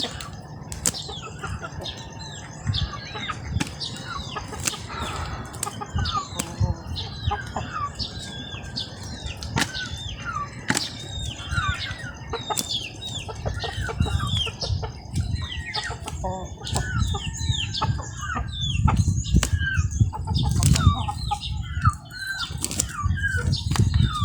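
Birds chirping in quick short calls over and over, amid rustling, clicks and a low rumble that grows louder in the last several seconds.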